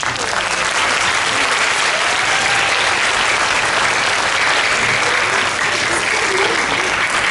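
Audience applause, steady dense clapping throughout, with a few faint voices under it.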